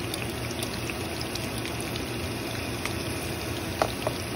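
Ground-beef patties sizzling steadily in shallow hot oil in a frying pan, with scattered small crackles and one sharper click near the end.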